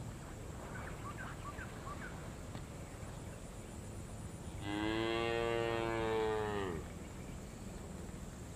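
A cow mooing once, a single long call of about two seconds near the middle that holds its pitch and then falls away at the end.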